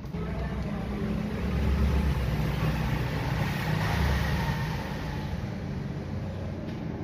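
A car engine running, its sound swelling between about two and four seconds in and then easing off.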